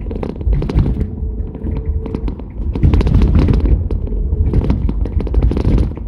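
Cabin noise in the back seat of a 1977 Chevrolet Camaro under way: a steady low engine and road rumble with many sharp clicks and knocks throughout.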